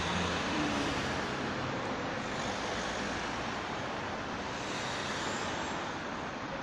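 Steady noise of road traffic passing around a roundabout, an even rush with no single vehicle standing out.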